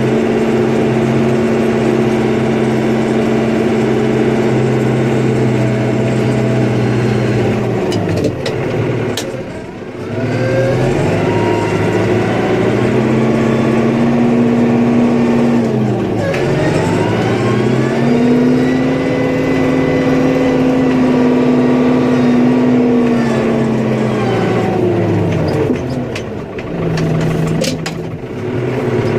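Engine of a snow-plowing vehicle working hard. Its speed drops away and builds back up about three times, with a few short knocks near the low points.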